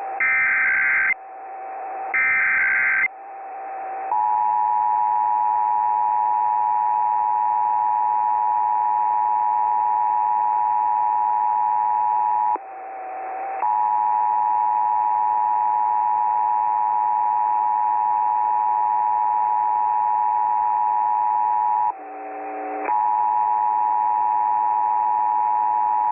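Emergency Alert System test: two bursts of SAME header data, a harsh screeching digital warble about a second each, followed by the EAS two-tone attention signal. The attention signal is a steady, loud pair of tones, broken twice by short gaps.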